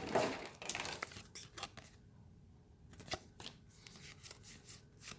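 A foil trading-card booster pack wrapper being torn open and crinkled. It is loudest in the first second or so, then there are fainter scattered crackles.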